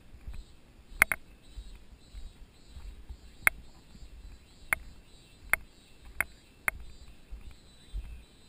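Bicycle riding up a gravel dirt road: sharp, unevenly spaced clicks and ticks, a close pair about a second in and then several single ones, over a low uneven rumble from the rough surface.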